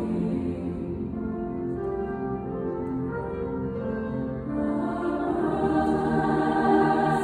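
Large mixed choir singing a Requiem in sustained, held chords, softer at first and swelling louder from about halfway through.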